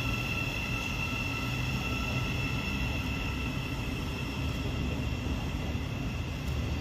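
Thameslink Class 700 electric multiple unit moving along the platform, a steady high electric whine over a low rumble.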